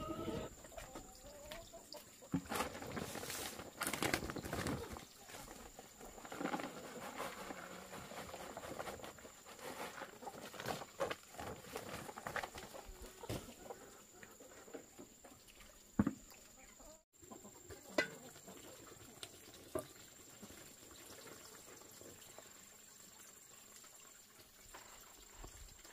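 Chickens clucking, among scattered rustling and a couple of sharp knocks, over a thin steady high-pitched tone.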